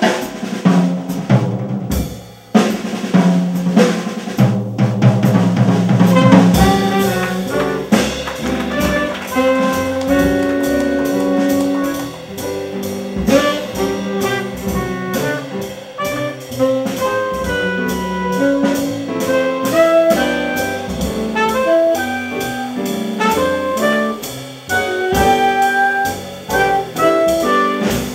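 Live small-group jazz. The drum kit plays busily at first, then trumpet and saxophone come in with a melody over upright bass and drums.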